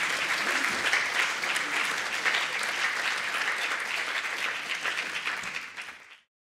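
Audience applauding, which fades and then cuts off sharply near the end.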